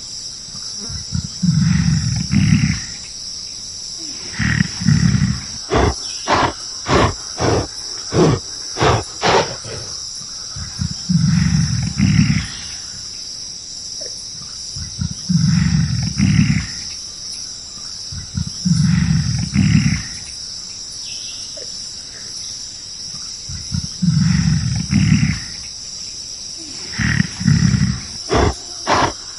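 Gorilla giving repeated low, rough roars, each lasting a second or so and coming every few seconds. A quick run of sharp knocks comes between them, and again near the end. A steady high insect drone runs underneath.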